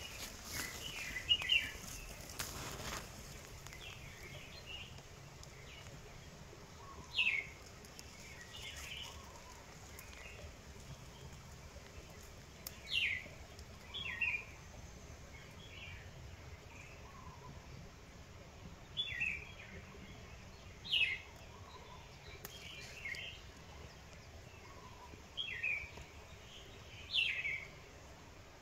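Small birds calling in the tree canopy: short, sharp, high notes that fall in pitch, repeated every few seconds, with softer chirps between them.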